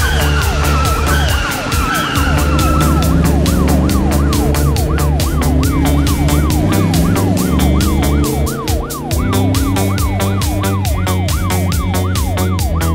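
Police car siren yelping fast, its pitch rising and falling about three times a second, over background music with a steady beat.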